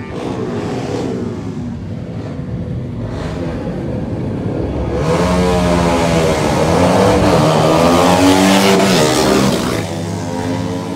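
Racing motorcycle accelerating hard along the track and passing close by. Its engine note builds and climbs in pitch from about five seconds in, is loudest a couple of seconds before the end, then drops away as the bike moves off.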